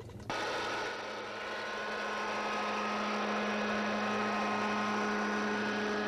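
Fumigating truck running steadily: a constant engine hum with several steady high whining tones over a hiss, starting suddenly just after the start.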